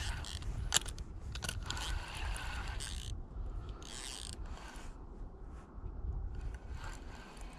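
Fishing reel being worked, a run of short mechanical clicks in the first few seconds, over a steady low rumble of wind on the microphone.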